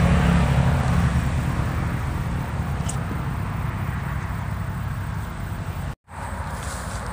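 Road traffic: a motor vehicle going by, a low rumble with a hiss that slowly fades. The sound drops out for a moment near the end.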